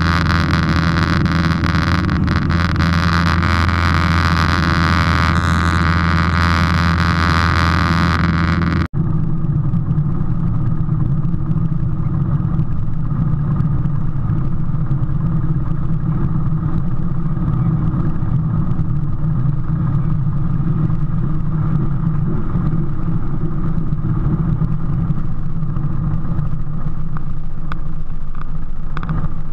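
Single-engine light aircraft's piston engine and propeller droning steadily, heard from inside the cockpit, with loud wind and engine noise in flight. About nine seconds in the sound cuts abruptly to a lower, duller engine run at low power on the ground.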